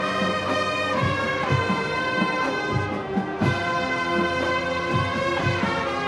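Marching band playing: brass holding sustained chords over repeated bass drum and percussion strikes.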